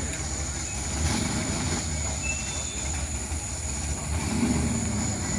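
Mud-bog pickup truck's engine idling with a steady low rumble, under crowd chatter.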